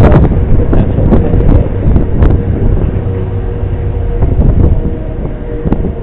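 Strong wind buffeting the microphone, with the faint steady wail of an outdoor tornado warning siren underneath.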